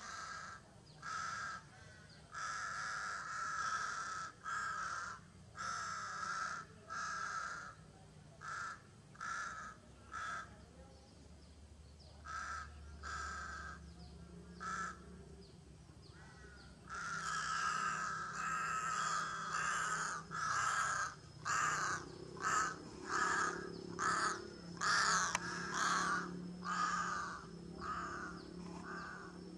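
Crow cawing over and over, a run of short separate caws that grows louder and comes in quicker succession in the second half.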